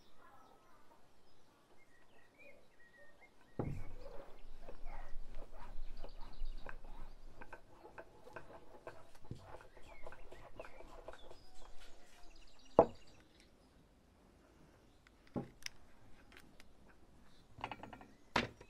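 Wooden rolling pin knocking and clattering on a wooden table as thin dough is rolled out, in a dense run of short knocks with a sharp louder knock in the middle, with birds chirping. Near the end, a few sharp knocks as split firewood is handled in a cast-iron wood stove.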